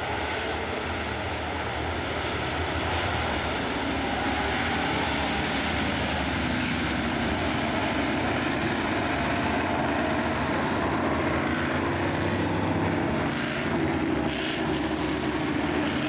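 Formula 5000 open-wheel race cars' V8 engines running at speed on the track, a continuous loud engine noise that grows a little louder as the cars come past.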